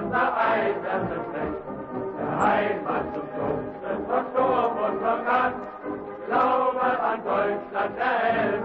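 Background music with voices singing in a chant-like style.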